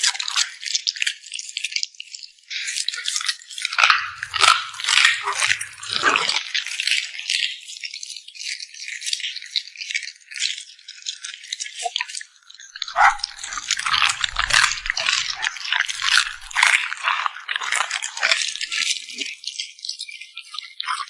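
Dog eating close to the microphone: a dense, irregular run of crisp crunches and clicks from chewing, with brief lulls.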